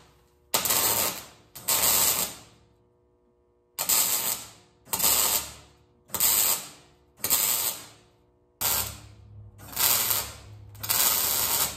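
MIG welder laying a series of short tack welds on a steel joint: about nine bursts of arc crackle, each under a second long, the last few longer and closer together.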